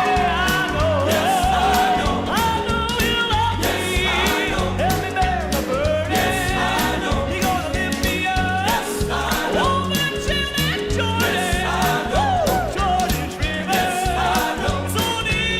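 Southern gospel male vocal quartet singing live with a band behind them, the sung lines wavering with vibrato over a steady bass-and-drum beat.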